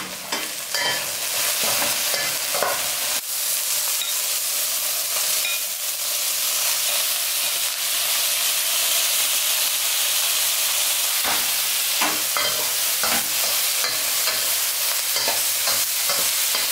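Chicken and carrots sizzling in hot oil in a wok, a steady frying hiss. Broccoli is tipped in partway through, and a metal spatula scrapes and clacks against the wok in short bursts of stirring, most of them in the second half.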